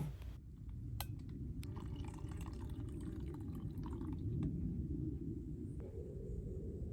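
Steady low rushing noise with a sharp click about a second in and faint light handling or scraping sounds over the next few seconds.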